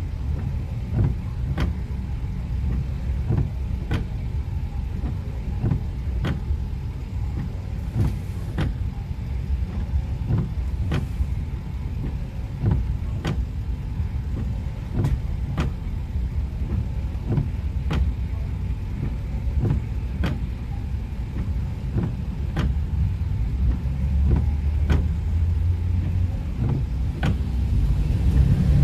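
Car driving on a wet road in the rain: a steady low rumble of engine and tyres, with short sharp ticks about once a second. The rumble grows louder over the last few seconds.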